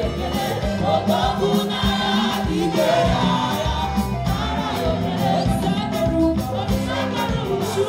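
Gospel choir singing a praise song together over a steady beat.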